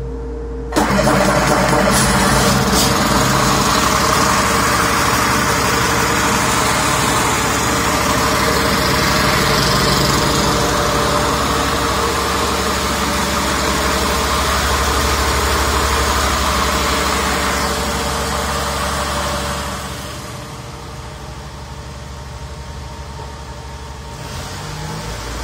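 Caterpillar C7 ACERT inline-six diesel engine on a test stand, starting about a second in and then running steadily. Its sound drops in level for a few seconds near the end and then climbs again.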